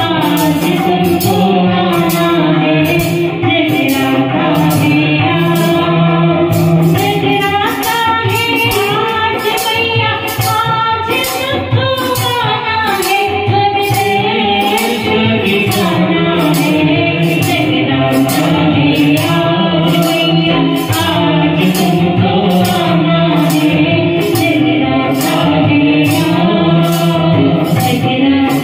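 A woman sings a Hindi devotional bhajan into a microphone, amplified through a PA speaker. An electronic keyboard accompanies her over a steady, evenly spaced percussion beat.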